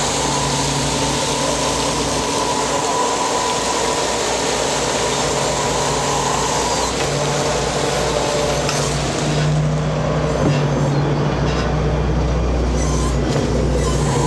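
Steady drone of a purse seiner's engines and deck hydraulics: a continuous low hum with a high whine through the first half, and a hissing noise that drops away about nine seconds in.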